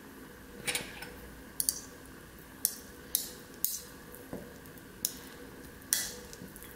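Metal spoon and fork clinking and scraping against a small glass bowl as salted pollock roe is scraped out of its skin, about eight sharp clinks at uneven intervals.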